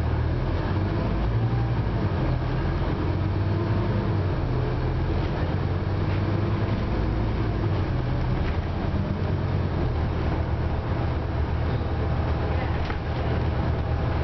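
Scania Omnicity single-deck bus heard from inside the passenger cabin: a steady low engine drone with running noise.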